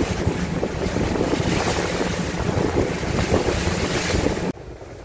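Small fishing boat running under way: engine and water noise with heavy wind buffeting the microphone. It stops suddenly about four and a half seconds in.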